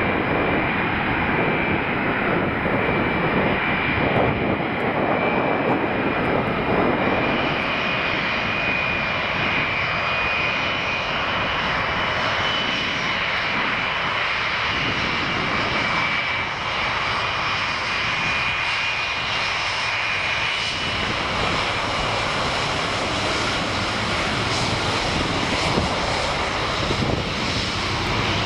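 Boeing 747's four turbofan engines at high power as the jet rolls along the runway: a loud, steady roar with a high whine from the fans.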